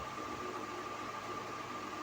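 Steady hiss with a faint constant high-pitched tone, background noise of the recording; no birdsong.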